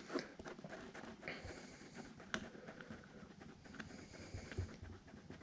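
Faint, irregular scraping and light tapping of a stir stick against the sides and bottom of a plastic mixing cup as epoxy resin and hardener are stirred together.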